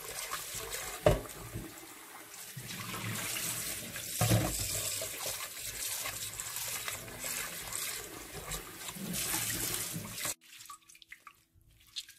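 Kitchen tap running into a glass bowl in a stainless-steel sink while raw beef slices are rinsed by hand, with two knocks about a second and four seconds in. The water cuts off suddenly near the end.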